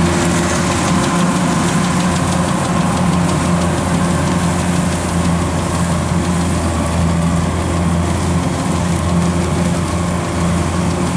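Kubota DC-93 combine harvester running steadily, its diesel engine under load as the machine cuts and threshes rice.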